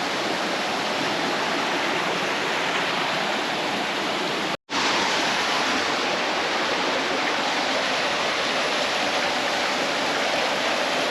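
Steady, loud rush of fast-flowing water over rocks, cut off for a split second a little under halfway through.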